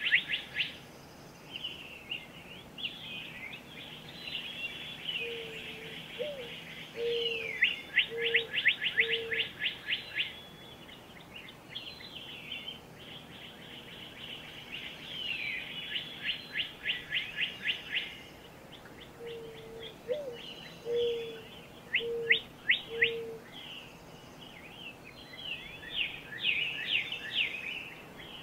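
Several woodland birds singing together: high chirping phrases and fast, rattling trills, several strung one after another. Beneath them, a low five-note call comes twice, the second note rising.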